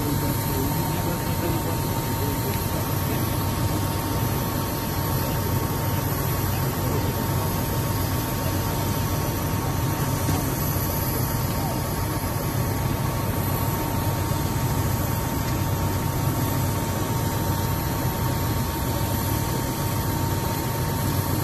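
Steady drone of a parked Airbus A220-300's auxiliary power unit, main engines shut down: a low rumble under a constant high whine, unchanging throughout.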